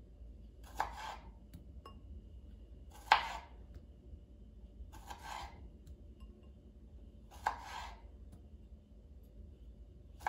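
A knife slicing through cherry tomatoes and tapping down on a plastic cutting board: one sharp cut about every two and a half seconds, each with a short scrape after it, four in all, the loudest about three seconds in.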